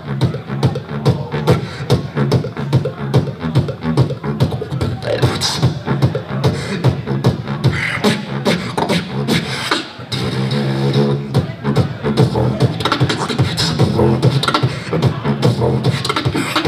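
Solo beatboxing into a handheld microphone: a fast, dense rhythm of mouth-made kicks, snares and hi-hats, broken about ten seconds in by a held, humming bass note for a couple of seconds before the percussion picks up again.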